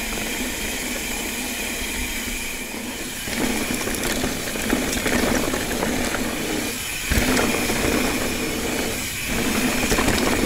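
Ibis Ripley 29er mountain bike rolling over a rough dirt trail: steady tyre and trail noise with rattles and clicks from the bike, getting louder and busier from about three seconds in.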